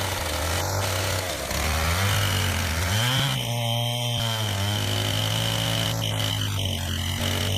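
Chainsaw engine running, its pitch rising and then falling about three seconds in, with a thin steady high whine over it.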